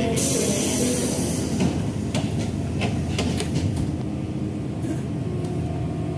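Electric commuter train's doors closing: a burst of air hiss from the pneumatic door gear, then a run of sharp clicks and knocks, over the steady low hum of the car.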